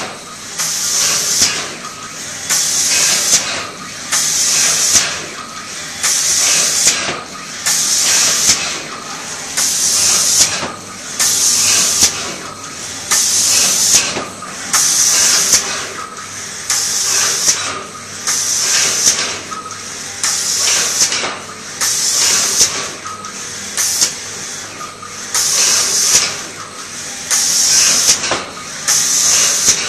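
Air spray guns on an automatic flatbed spray finishing machine hissing in repeated bursts as they spray finish onto MDF cabinet doors. Each burst lasts about a second and comes roughly every two seconds, over a steady lower machine noise.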